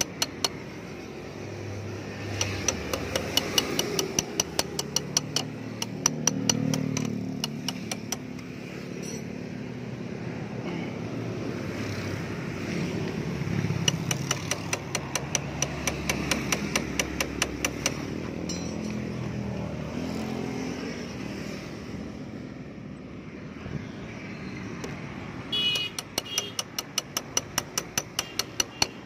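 Rapid, even metal-on-metal tapping, about four strikes a second in runs of several seconds, as a screwdriver held against a rusty motorcycle drive chain is struck to drive a link pin out. Passing traffic rumbles underneath, swelling and fading.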